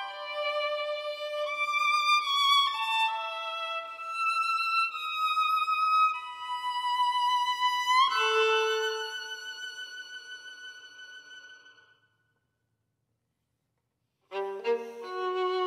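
Violin playing a slow melodic line of held notes. About eight seconds in, one long note fades away, there are a couple of seconds of silence, and a new phrase begins near the end.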